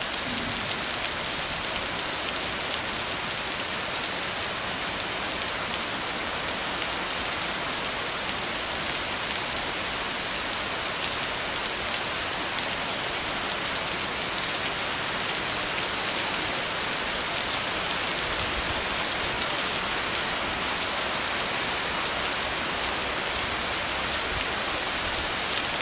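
Heavy rain pouring steadily onto flooded ground: a dense, even hiss flecked with the ticks of single drops.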